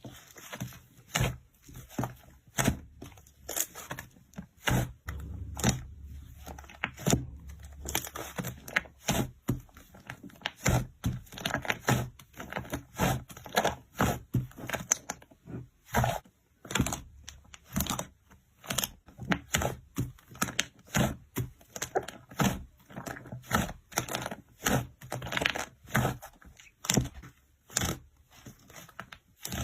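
Slime being pressed and squeezed by hand, giving a string of sharp popping clicks about once or twice a second.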